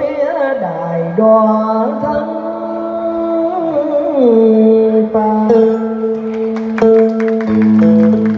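A woman singing cải lương, holding long drawn-out notes that slide from one pitch to the next. A guitar is plucked behind her, its notes coming more thickly in the second half.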